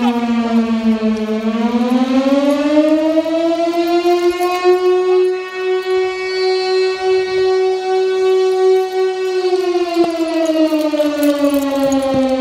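Fire siren sounding a slow wail for a fire alarm call: the pitch dips low about a second in, climbs over the next few seconds, holds steady for several seconds, then winds back down near the end.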